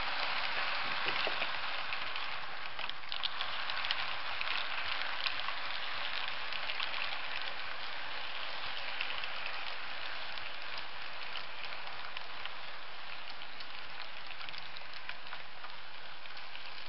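Model train rolling along the layout's track: a steady hiss of wheels on rail with many faint clicks over the rail joints, busiest in the first half as the carriages pass close by.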